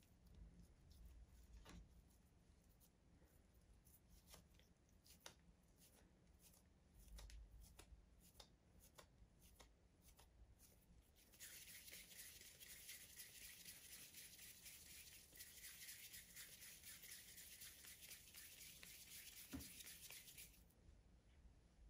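Very faint handling sounds of hands shaping soft yeast dough, with a few soft ticks. From about halfway in there is a steady soft rubbing hiss as the filled dough ball is rolled between the palms; it stops shortly before the end.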